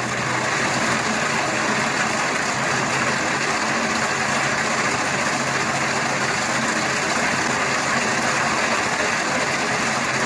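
Diesel engine of a heavy road construction machine running steadily, with a dense mechanical noise that holds even throughout.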